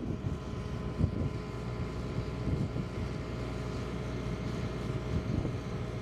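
Diesel engine of heavy construction plant running steadily, a low even rumble with a constant hum.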